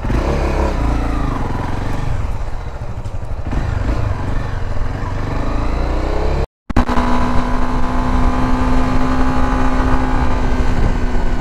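Honda Sahara 300's single-cylinder engine pulling away and accelerating, its pitch rising through the gears. After a short break in the sound about six and a half seconds in, it runs steadily at cruising speed on the highway.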